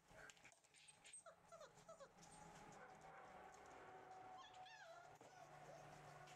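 Rough collie puppies whimpering faintly at play: a quick run of short falling squeaks between one and two seconds in, then a higher whine a little past the middle. A faint steady hum runs underneath.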